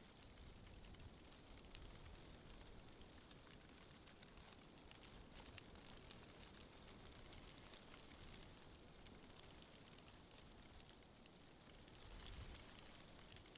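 Faint wind through trees: a soft steady hiss scattered with light crackling ticks over a low rumble, swelling in a gust near the end.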